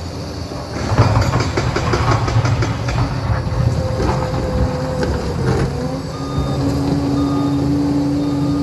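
Liebherr 746 crawler dozer at work: its diesel engine running steadily under rapid clanking from the steel tracks. The clatter is loudest from about one second in to about six seconds in.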